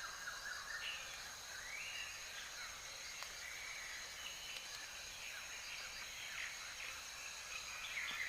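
Outdoor woodland ambience: many small chirping calls, typical of birds, over a steady high-pitched hum typical of insects.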